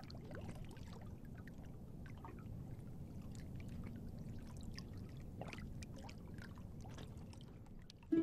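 Faint water splashing and lapping from a small boat being rowed, with irregular soft splashes over a low steady background; one splash stands out about five and a half seconds in.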